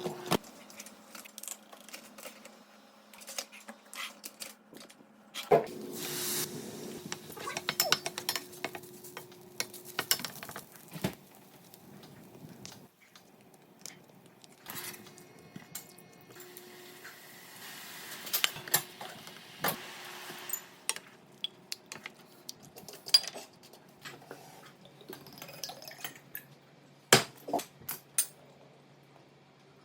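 Kitchen clatter: dishes, pots and utensils clinking and knocking at irregular intervals, with a stretch of steady hiss about five seconds in.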